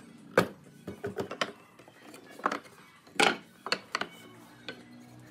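Wooden boards knocking and clattering against a wooden frame as they are handled and pressed into place: a series of irregular sharp knocks, the loudest about half a second in and again a little after three seconds.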